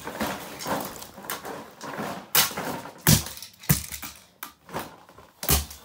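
A golf club hitting a vintage Sony cassette player's plastic case: four hard blows, three in quick succession and one near the end, with softer knocks and scraping in the first two seconds.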